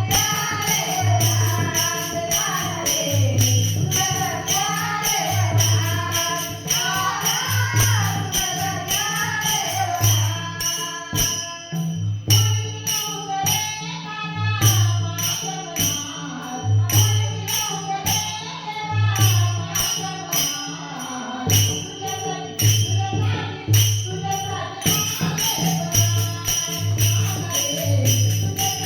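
Marathi gaulan devotional song: a woman singing a wavering melody over a steady drum beat and jingling tambourine-like percussion.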